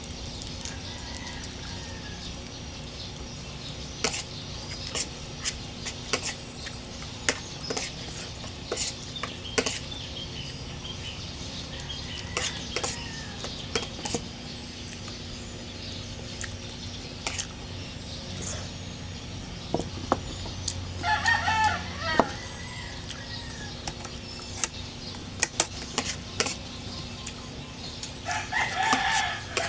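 A rooster crowing twice, once about two-thirds of the way through and again near the end, over scattered clicks and smacks of someone eating.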